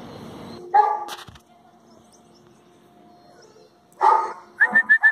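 Gaddi and Bhutia dogs barking during play: one bark about a second in, another at about four seconds, then a quick run of high-pitched yaps near the end.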